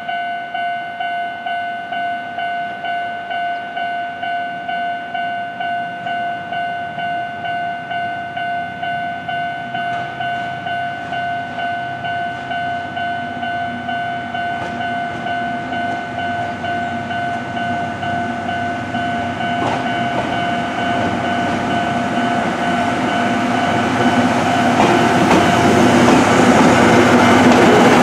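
Railway level-crossing warning bell ringing in a steady electronic ding-ding, about two strokes a second. Over the last ten seconds the rumble of the approaching SL Paleo Express train grows louder until its coaches are running past close by.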